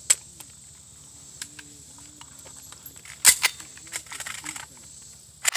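Metallic clicks and clacks of a SIG MPX 9mm carbine being handled and readied after a malfunction. A sharp clack comes a little past three seconds in, a quick run of small clicks about a second later, and another clack just before the end.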